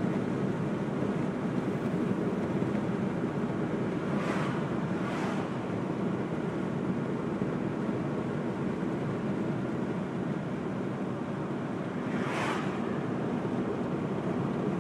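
Steady road and wind noise of a car driving along a highway, with three brief whooshes of vehicles going past, about four and five seconds in and near the end.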